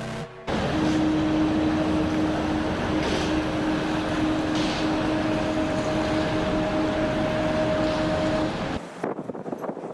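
Ship's horn sounding one long, steady blast of about eight seconds over a steady noisy background, with a higher second tone joining about halfway; the blast cuts off suddenly near the end.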